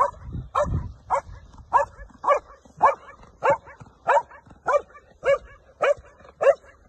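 A year-old female Belgian Malinois barking on command in a bark exercise: an even string of sharp barks, nearly two a second, about a dozen in all.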